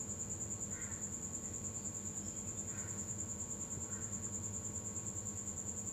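A cricket chirping on and on, a high fast-pulsing trill, over a low steady hum.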